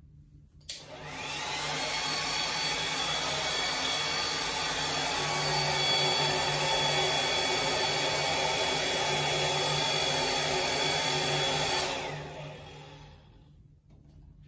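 Handheld hair dryer switched on with a click, its whine rising as the motor spins up, then running steadily and blowing air. Near the end it is switched off and winds down.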